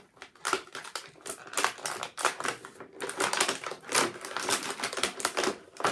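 Plastic and cardboard toy packaging being handled and pulled at as a figure is worked out of its tray: a rapid, irregular jumble of clicks and rustles.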